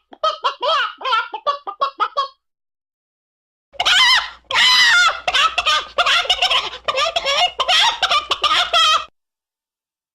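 Chicken clucking and squawking in quick, pitched, bending calls. There are two bursts with a pause of about a second and a half between them, and the second burst is denser and has a low hum under it.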